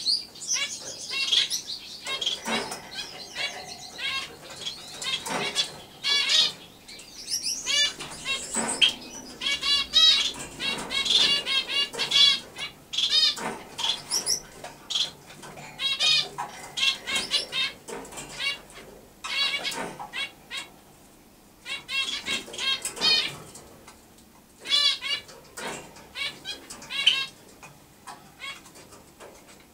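Java sparrow singing in a cage: runs of quick clicking, chirping notes in bursts of a second or a few seconds, with short pauses between them.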